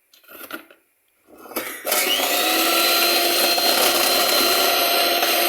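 Electric blender mixing pancake batter: a short clatter, then the motor starts about two seconds in, spins up quickly and runs steadily at full speed.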